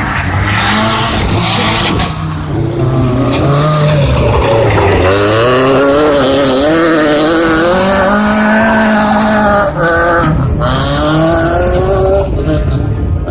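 Rally car engine revving hard, its pitch rising and falling again and again as it accelerates and shifts, with tyre noise from sliding. The engine briefly drops out twice about ten seconds in.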